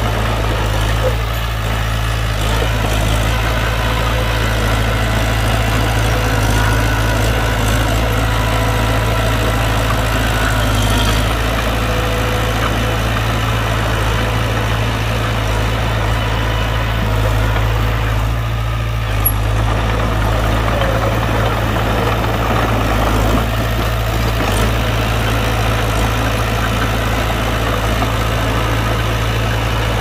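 Heavy earthmoving machine's diesel engine running steadily, with a deep, even drone throughout.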